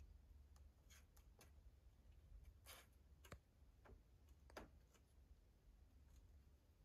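Near silence: a low steady hum with a few faint, scattered clicks and ticks.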